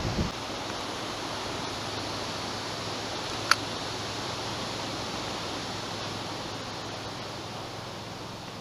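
Steady rushing of a small river's flowing water, an even hiss, with a gust of wind on the microphone dying away at the very start and a single sharp click about three and a half seconds in.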